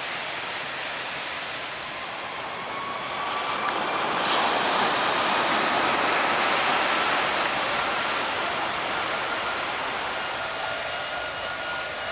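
Aircraft engine noise swelling about four seconds in, with a thin whine that slowly rises in pitch, over a steady rush of beach surf.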